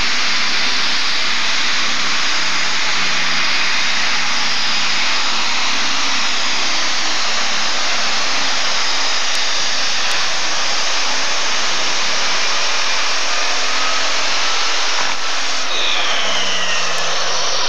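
Super stock pulling tractor's engine running flat out under full load as it drags the sled down the track. Near the end, falling whines as it throttles back at the finish.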